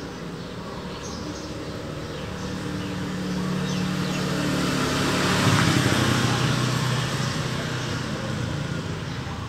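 A motor vehicle passing by: its engine grows louder to a peak a little past the middle and then fades away. Birds chirp faintly in the background.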